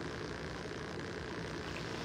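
Steady low rushing noise of wind and water at the shoreline, with no single event standing out.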